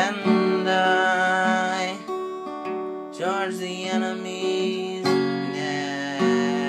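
A man singing long, wavering held notes over a strummed acoustic guitar.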